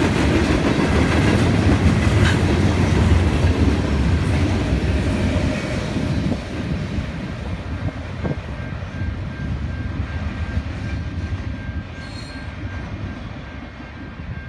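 Freight cars of a Canadian National mixed freight train rolling over the rails with a steady clatter, loud for the first half, then dropping and fading as the end of the train moves away down the track.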